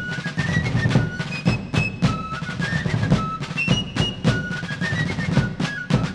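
Opening theme music: a steady beat of snare and bass drums under a high melody of held notes that step up and down.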